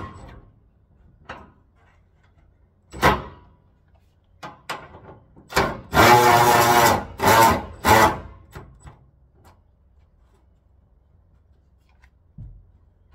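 Workshop tool noise: a string of sharp knocks and clanks, with a rattling run of about a second from a tool in the middle.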